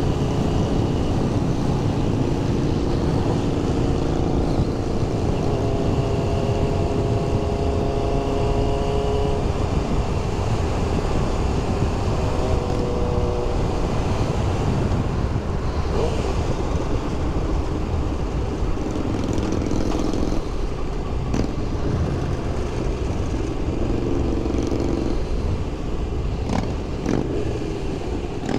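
Suzuki GSX-R600 inline-four sport bike running at road speed in traffic, its engine under a steady rush of wind on the microphone.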